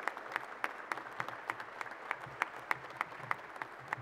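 Audience applauding, with one nearby person's claps standing out, sharp and regular at about three a second.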